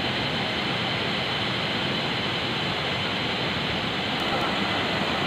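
Steady rushing roar of a fast mountain river tumbling over rocks in white-water rapids.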